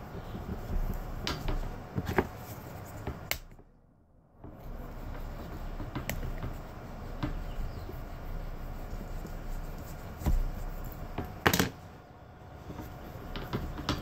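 A microfiber cloth rubbing and a plastic scraper scraping on a lightsaber handle's rubber grip pads, lifting off sticky, deteriorated rubber with isopropyl alcohol. Scattered sharp clicks and light knocks come from handling the metal handle and tools, the loudest a few seconds before the end, and the sound drops out briefly about four seconds in.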